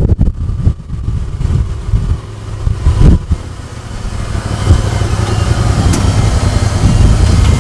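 Side-by-side UTV's engine running low and steady while driving, heard from the open cab, with rattles and a single sharp knock about three seconds in.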